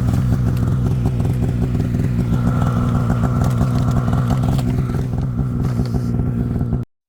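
Arctic Cat snowmobile engine running steadily at speed, then cutting off abruptly near the end.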